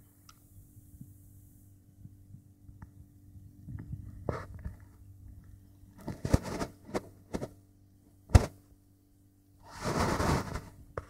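Handling noise: scattered rustles and knocks over a low steady hum, with one sharp knock about eight seconds in and a longer rustle near the end.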